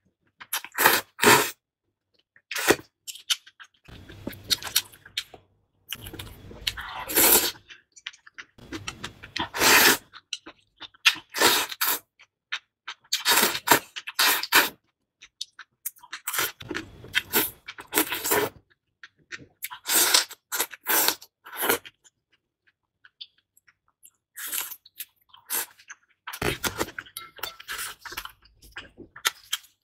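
Close-miked eating sounds: repeated slurps of noodles from broth and wet chewing, in short bursts with brief pauses between them.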